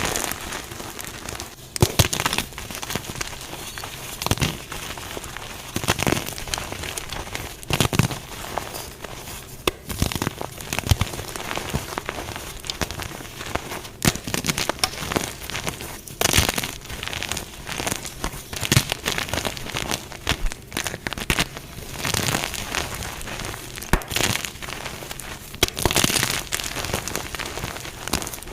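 Dyed gym chalk blocks being crushed: continuous crunching and crumbling, with a louder sharp crack every couple of seconds.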